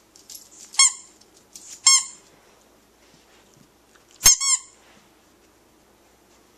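Squeaky dog toy squeezed three times: a short high squeak about a second in, another about two seconds in, and a louder double squeak a little past four seconds.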